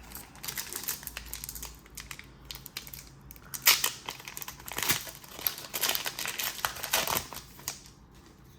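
Foil Pokémon TCG booster pack wrapper crinkling and crackling as it is handled and opened, in irregular bursts that are loudest in the middle and again near the end.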